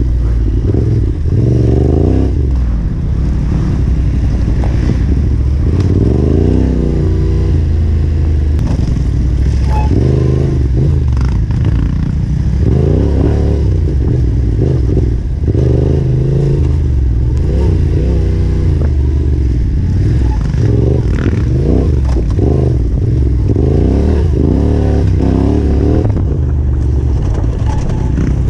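Yamaha Ténéré 700's parallel-twin engine working on a tight dirt trail, revving up and dropping back again and again every few seconds as the throttle is opened and closed.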